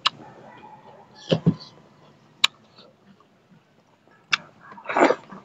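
Close-miked eating by hand: chewing, lip smacks and wet mouth noises as a mouthful of rice is taken, with half a dozen short, sharp smacks and clicks spread through.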